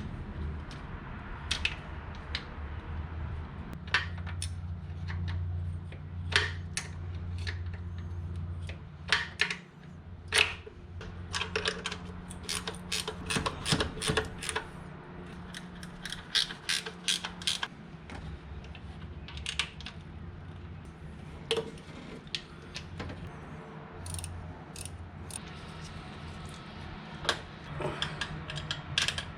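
Hand tools working metal fasteners: a series of irregular clicks and clinks, with ratchet clicking, as the intake manifold is bolted on, densest about halfway through, over a steady low hum.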